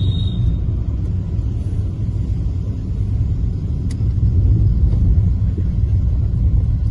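Steady low rumble of a car driving along a road.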